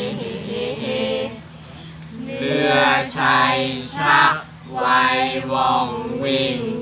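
A small mixed group of young male and female voices chanting a Thai kap he ruea (royal barge song) in unison, with a pause for breath about a second and a half in before the next line begins.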